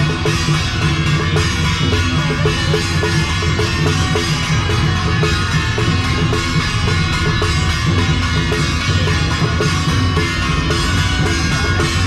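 Music with a drum kit playing a steady beat.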